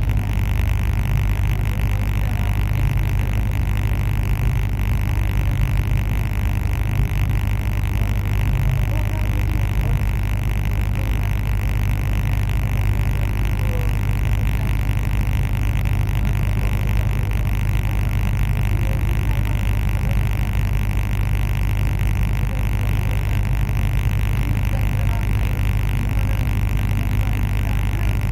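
Steady low rumble and running noise of a TCDD regional passenger train, heard on board, holding an even level throughout.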